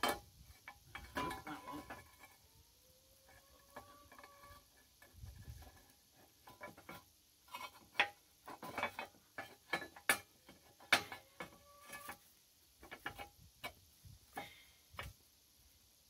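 Irregular metallic clinks and knocks of steel linkage arms and pins being handled and fitted onto a backhoe boom. The sharpest knocks come about eight and eleven seconds in.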